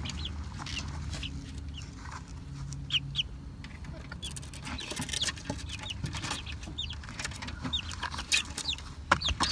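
Young chicks, a few weeks old, peeping: scattered short, high-pitched, falling peeps, with a few light knocks and scratches among them.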